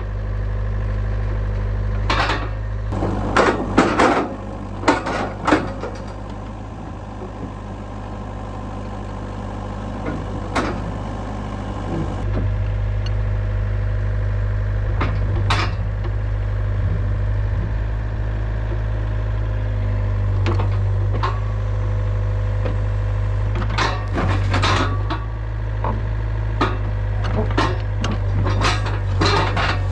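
Yanmar VIO50 mini excavator's diesel engine running steadily as the machine is driven off a trailer. Sharp metal clanks and knocks from the tracks and the steel trailer come in several groups: a few seconds in, around the middle, and through the last few seconds.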